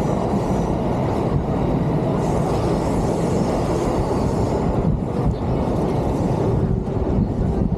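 A train passing close by: a loud, steady rumble.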